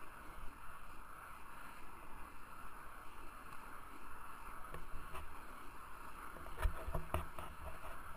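Freeline skate wheels rolling over asphalt, a steady grainy whir, with a few sharp clicks and knocks about five seconds in and again around seven seconds.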